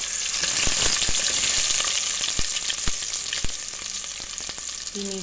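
Sliced onion sizzling as it hits hot olive oil in an aluminium pot. The hiss starts suddenly and eases slightly over a few seconds, with scattered sharp pops of spattering oil.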